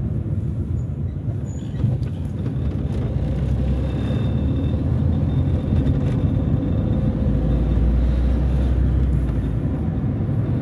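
Steady low rumble of a car's engine and tyres heard from inside the cabin while driving on a paved street, with a small knock about two seconds in and the rumble deepening briefly near the end.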